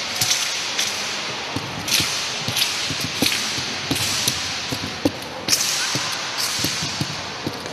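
Three-section staff being swung and spun through the air: repeated swishing whooshes at an uneven pace, mixed with short knocks and thuds from the staff sections and the performer's footwork on the mat.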